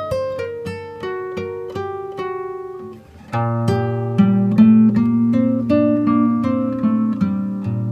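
Background music of plucked acoustic guitar picking single notes, about three a second. A little after three seconds in it dips briefly, then turns louder and fuller, with sustained low bass notes under the picking.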